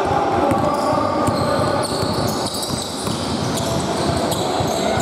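Basketball bouncing and players' footsteps on a wooden sports-hall court, with many short knocks echoing in the large hall.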